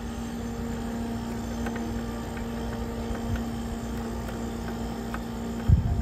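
Nova Kool 12-volt refrigerator running: its Secop compressor and cooling fan hum steadily, and keep running while the controller board's wire connectors are wiggled to test for a loose connection. A few faint ticks, and a low thump near the end.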